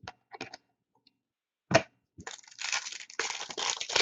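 A few light handling clicks and one sharp snap, then a couple of seconds of crinkling and tearing: a trading-card pack wrapper being ripped open.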